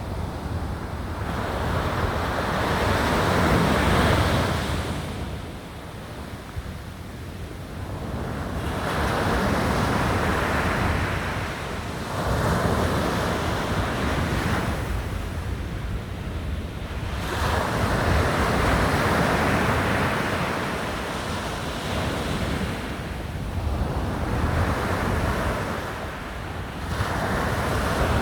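Sea waves breaking and washing ashore, the surf surging and falling back in repeated swells about every five seconds.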